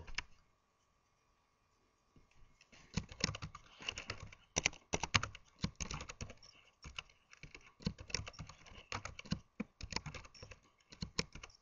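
Typing on a computer keyboard: a run of irregular, quick keystrokes that starts about three seconds in and goes on to near the end.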